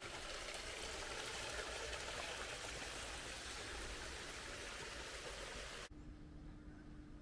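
Water running steadily down a narrow ditch beside a concrete edge, an even rushing trickle. It cuts off abruptly about six seconds in, giving way to a quieter background with a faint steady hum.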